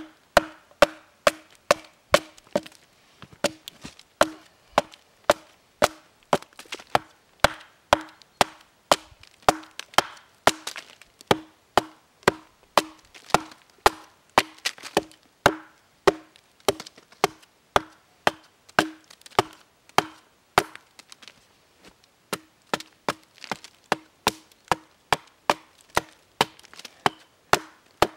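Hatchet chopping along the top of a log, about two strikes a second, each a sharp wooden knock with a brief ring. The blows are hewing the log's top flat. There is a short pause about three-quarters of the way through.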